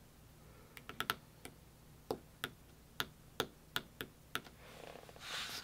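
About a dozen light, sharp taps of long fingernails on paper, roughly three a second and unevenly spaced, followed near the end by a soft rustle of paper.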